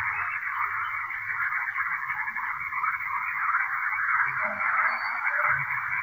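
Dense chorus of many frogs calling at once, their calls merging into one steady, unbroken wall of sound.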